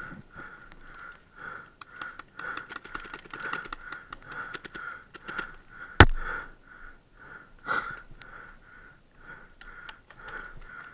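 Paintball fire: a quick run of sharp clicks from about two to five seconds in, then one loud sharp crack about six seconds in and a smaller one a little later. A faint high tone pulses two to three times a second throughout.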